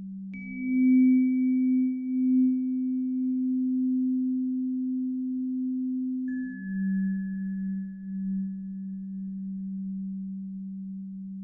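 Paced-breathing guide tones for HRV breathing: a steady electronic hum, with a struck bell chime when it steps up in pitch just after the start, then a lower chime when it steps down about six seconds in. It marks a slow breath cycle of about six seconds each way.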